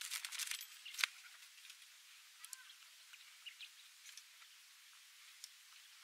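Rustling and clicking from a handmade wooden sling bird trap and its leafy branch being handled, with one sharp click about a second in. Faint scattered ticks and short chirps follow.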